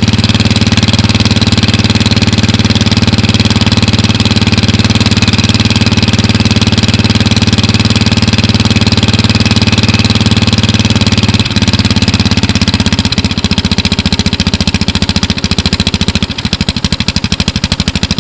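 Small riding-mower engine idling loudly and steadily; about eleven seconds in the idle slows and turns lumpy, each firing beat heard separately.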